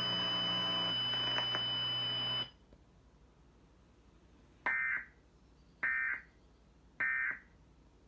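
A steady electronic hum with a thin high tone cuts off about two and a half seconds in. After a pause come three short digital data bursts about a second apart: the Emergency Alert System's end-of-message (SAME EOM) tones that close the alert.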